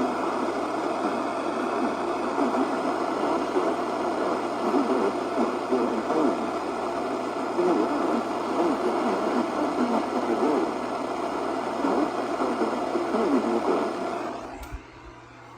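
Steady radio static: a dense hiss from a weak radio signal, cutting off suddenly near the end.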